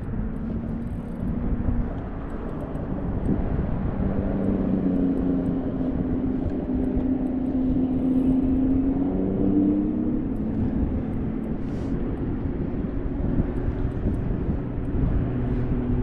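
A motor's steady drone, its pitch drifting slowly up and down, over a low rumble of wind on the microphone.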